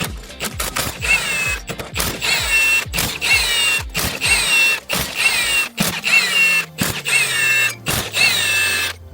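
Background music with a steady beat and a repeating high melodic figure, with a low sliding bass tone near the end.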